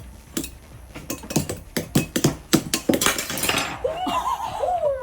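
Quick run of sharp knocks and clinks, like metal utensils clattering against dishes, followed near the end by a short high wavering whine.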